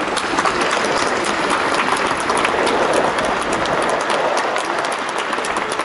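Large crowd applauding in a stadium: a dense run of many overlapping claps, loudest about halfway through.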